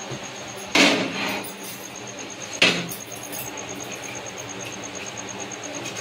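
Two sharp metallic clanks with a short ring, about two seconds apart, as an iron tawa (flat griddle) is set down on a gas stove burner.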